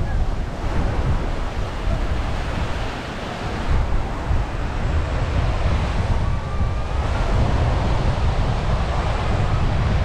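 Small surf washing onto a sandy beach, with wind buffeting the microphone in a steady low rumble.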